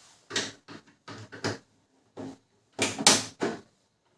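Plastic knocks and clatter from handling the opened gear-side cover and casing of a Canon imageCLASS MF221d printer: a string of short, separate sounds, the loudest and longest about three seconds in.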